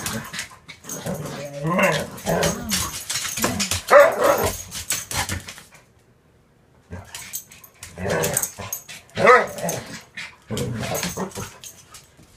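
Small dogs play-fighting: a run of growls and short barks, with a brief pause about six seconds in before the growling and barking start again.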